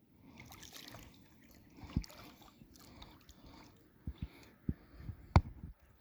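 Several sharp knocks and bumps on a kayak, the loudest about five seconds in, over a faint trickle of water.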